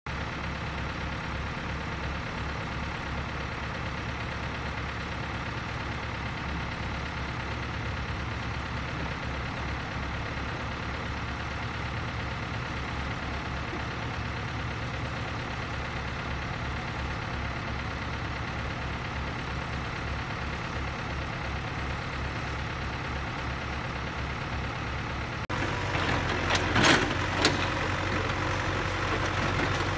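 Hitachi EX60 excavator's diesel engine idling, a steady low rhythmic throb. About 25 seconds in, the sound jumps abruptly louder, and a few sharp knocks follow soon after.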